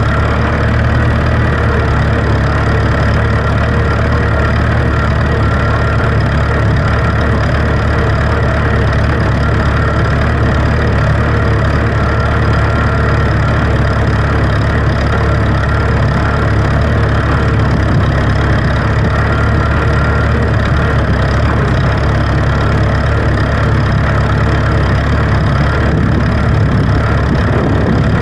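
Farm tractor engine running steadily at constant speed, close and loud.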